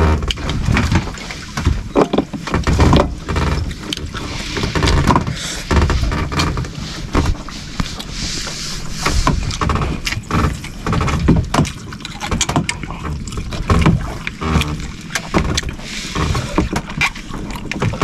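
Water slapping and sloshing against the hull of a small fishing boat at rest on the sea, with wind buffeting and irregular knocks.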